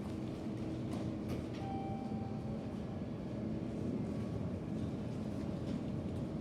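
Elevator machine room: a steady low mechanical hum and rumble from the elevator equipment, with a faint steady tone, a brief higher whine about two seconds in, and a few light clicks.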